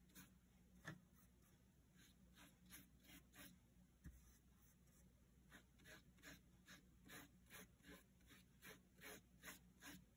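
Faint swishes of a watercolor paintbrush stroking across paper, sparse at first and then coming more often, a couple of strokes a second.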